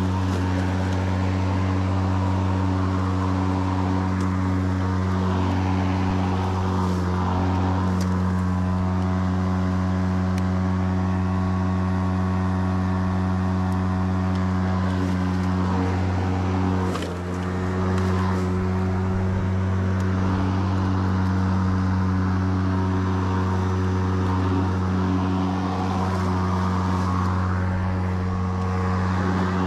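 EGO 56V Select Cut cordless lawn mower running while mowing, its electric motor and blades giving a steady, even hum that dips briefly in level a little past the middle.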